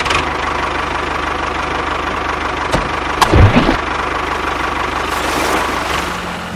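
Tractor engine running with a steady low chug, and a brief louder sound a little past three seconds in.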